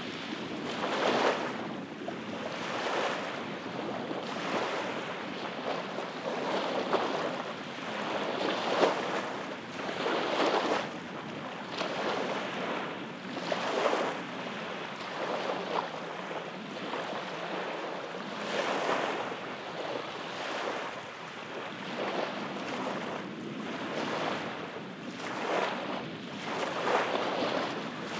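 Small waves breaking and washing up onto a sandy beach, one swell after another every second or two.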